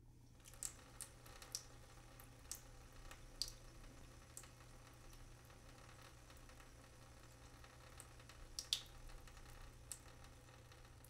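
Water dripping from a leaking sink: about nine sharp, irregular drips, with a gap of several seconds in the middle and two drips close together later on, over a faint steady low hum.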